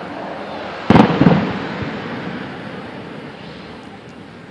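Aerial fireworks shell bursting with a loud boom about a second in, a second bang just after it, then the sound fading away slowly.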